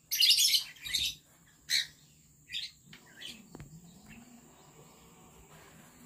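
Lovebirds chirping in short, high calls: a loud burst of chirps at the start, then single chirps about once a second that grow fainter, with little after the middle.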